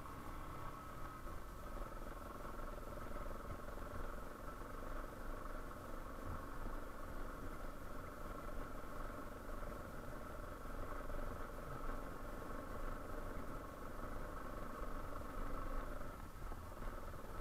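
Yamaha Serow 250's air-cooled single-cylinder engine running steadily at low speed, with a brief dip in its note near the end.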